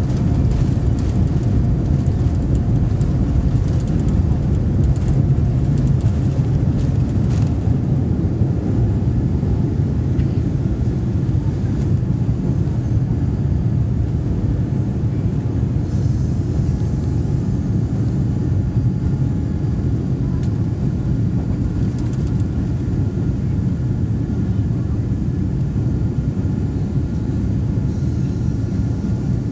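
Jet airliner cabin noise during takeoff and climb-out: a loud, steady, deep rumble of the engines at takeoff power and the rushing air, with a faint high whine coming in about halfway through.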